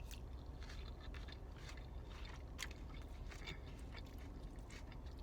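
Close-up chewing of food: irregular soft mouth clicks, over a low steady hum.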